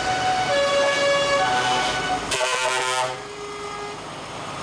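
Truck air horns sounding several tones at once as convoy trucks pass, over the trucks' engines. About two and a half seconds in comes a short burst of hiss, after which a single lower horn tone lingers and fades.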